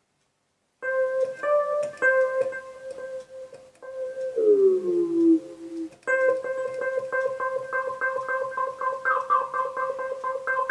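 Korg Pa50SD arranger keyboard sounding notes played from an E-mu Xboard 25 MIDI controller, which shows the MIDI connection is working. The notes start suddenly about a second in. A few seconds later the pitch slides down in a bend, and a fast run of repeated notes follows.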